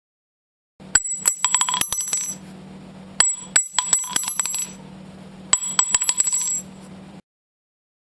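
Spent cartridge case falling and bouncing, three times: each drop is a quick run of bright metallic clicks and pings lasting about a second and a half before it settles.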